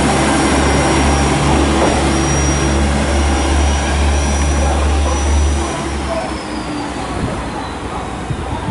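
Diesel engines of a two-car KiHa 47 railcar train running under power as it pulls away, a loud steady low drone that drops off about six seconds in, leaving fainter running noise with some rattling.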